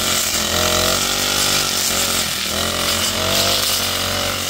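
Small two-stroke brush cutter engine running under load, revving up and down repeatedly as it cuts through weeds and undergrowth.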